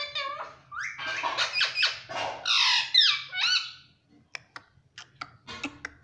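Indian ringneck parakeet calling and chattering in quick, pitch-bending squawks for about four seconds, then a run of sharp clicks.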